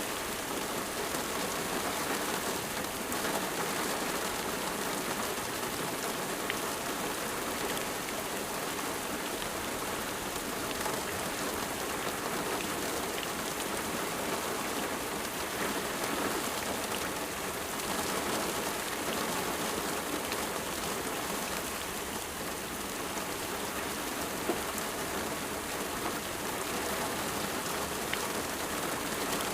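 Steady rain falling on a surface, a dense even hiss flecked with small drop ticks.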